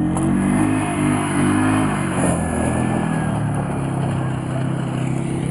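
Four-wheeler (ATV) engine running steadily, its pitch wavering a little in the first couple of seconds and then holding level.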